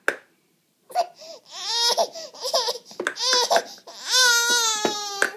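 Baby crying: after a second of quiet, short whimpering cries that rise and fall in pitch, building to one long high wail near the end that cuts off suddenly.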